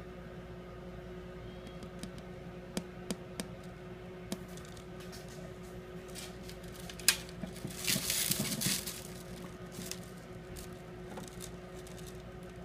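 Turtle splashing in a shallow aquarium: a few light clicks, then a sharp click about seven seconds in followed by about a second of splashing water, over a steady low hum.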